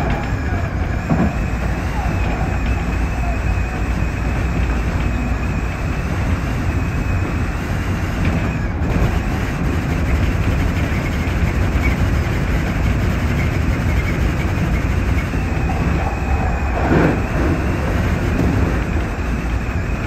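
Electric commuter train running along the line, heard from the driver's cab: a steady rumble of wheels on rail with a faint high steady whine. Two brief louder clatters come about a second in and near the end.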